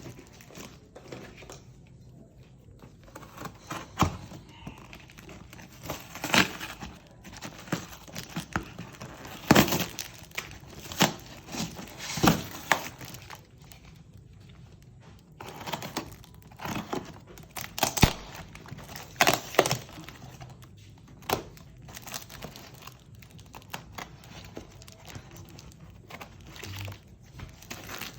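Packaging being cut and pulled open by hand: irregular crinkling and tearing of wrapping, with scattered sharp clicks and knocks.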